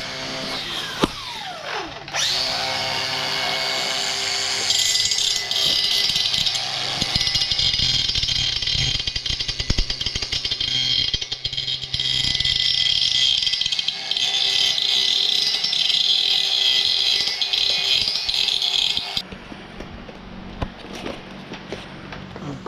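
Angle grinder working the steel leg of an engine crane: a falling whine as it winds down in the first two seconds, then it is started again and grinds steadily with a high motor whine and rasp of disc on metal, stopping suddenly about three seconds before the end.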